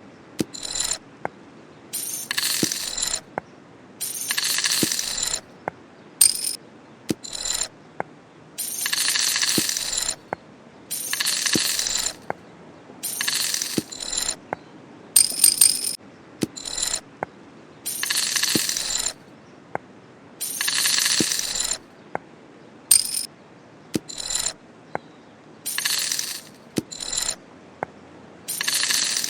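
A small heart-shaped bottle shaken in short bursts, its contents rattling against the glass, with sharp single clicks and taps between the shakes. The rattles come about once every one to two seconds throughout.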